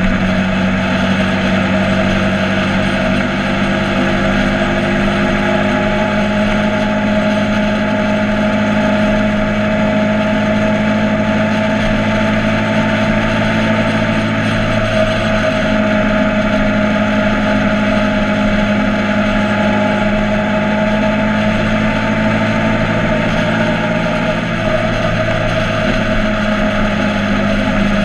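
Motorcycle engine running at a steady, nearly unchanging pitch, with a broad noise over it.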